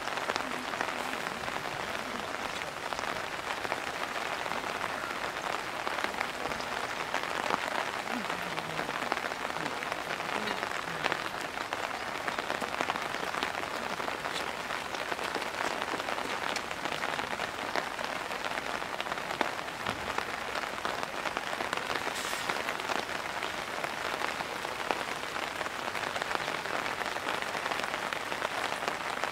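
Heavy downpour falling steadily, a dense hiss of raindrops with fine ticks of drops striking hard surfaces.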